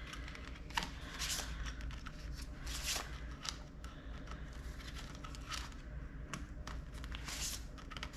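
Paper envelopes and cash being handled: irregular rustles and shuffling with a few light taps as they are moved and laid down.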